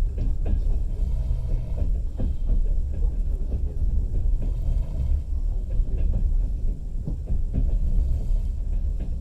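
Passenger train running, heard from inside the carriage: a steady low rumble with irregular clacks of the wheels over the rails.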